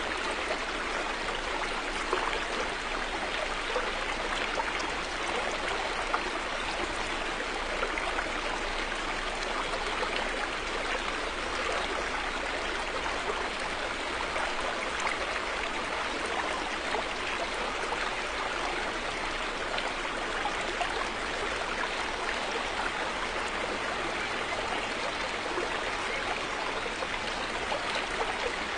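River water flowing steadily over rocks, a constant rushing with small splashes and gurgles.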